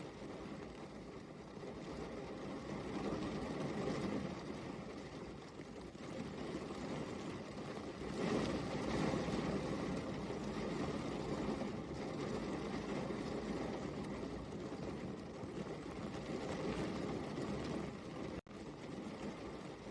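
Steady rain, an even hiss that swells and eases over several seconds, with a split-second gap about 18 seconds in.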